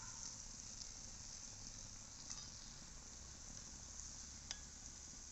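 Coconut oil sizzling faintly with fine crackling in a cast unniyappam pan as wheat-flour unniyappam fry. Metal utensils click sharply against the pan a couple of times, the sharpest about four and a half seconds in.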